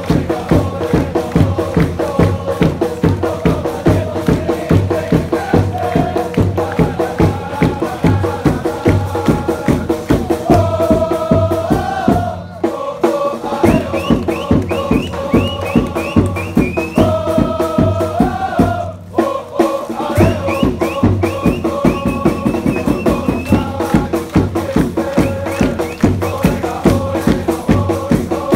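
Football supporters' group chanting in unison to a steady, driving drum beat. The drums drop out briefly twice around the middle, leaving the voices, then come back in.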